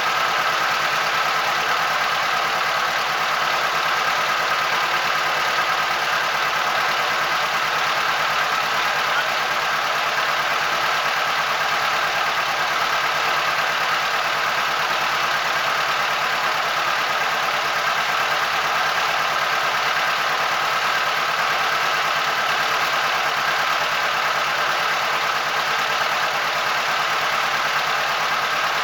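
Boat engine running steadily at an even speed, with a constant hum and no change in pitch.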